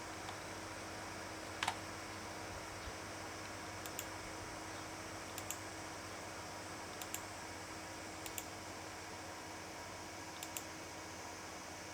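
Quiet room tone: a steady hiss with a low hum. One sharper click comes about two seconds in, then faint double clicks every second or two.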